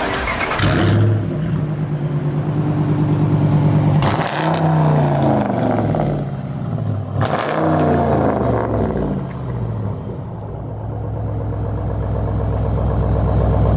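A V8 muscle car's exhaust running at a steady, lumpy idle, revved up and back down twice, about four and seven seconds in.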